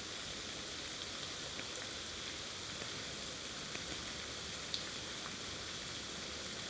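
Steady, even hiss of outdoor background noise, with a few faint ticks and one sharper click about five seconds in.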